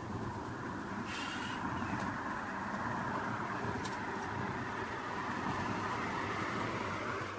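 A steady rushing noise with no clear pitch, stepping up in level as it begins.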